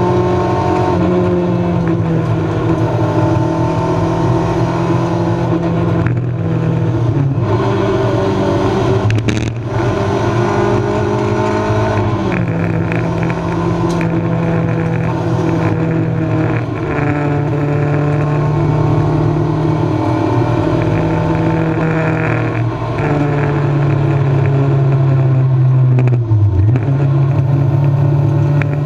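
Honda 1600 four-cylinder race engine running hard under load, heard from inside the stripped cabin. The engine note holds fairly level, with a few short breaks and downward steps in pitch as the gears change.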